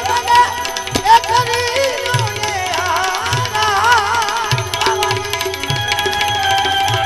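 Gujarati santvani devotional folk music: a hand-drum beat under sustained drone tones and a melody of sliding, wavering notes.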